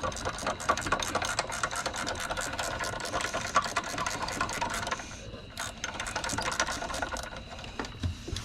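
Hand ratchet wrench clicking rapidly as a bolt is backed out. The clicking pauses briefly about five seconds in, resumes, then stops near the end.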